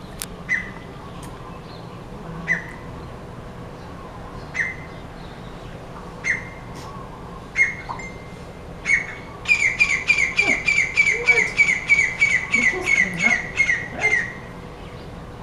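A bird calling with short, sharp calls, one every second or two. About nine seconds in it breaks into a fast run of around fourteen calls in a row, lasting several seconds. A faint steady hum sits underneath.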